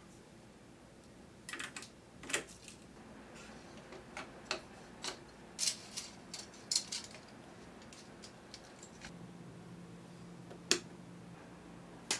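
Metal film splicer worked by hand: a run of sharp clicks and clacks from its lever and parts, then a single louder click near the end, with a low steady hum joining in after about nine seconds.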